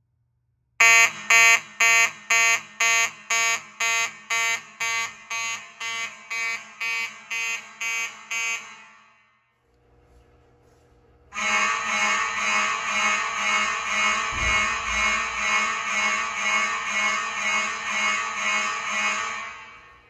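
Fire alarm horn sounding in march-time coding, sharp pulses at about two a second, stopping after about eight seconds. After a short lull the alarm sounds again, heard as an almost continuous blare with only a faint pulse, and stops near the end.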